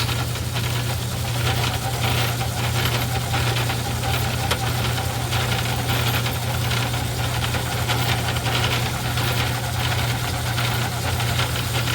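Craftsman 109 metal lathe running under power feed while the tool turns a steel workpiece. A steady low hum carries through, with a continuous gritty rasp from the cut.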